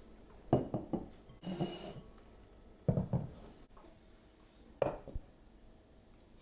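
Kitchenware being handled: dishes and utensils knocking and clinking in three short clusters, about half a second, three seconds and five seconds in, with a brief scraping rustle between the first two.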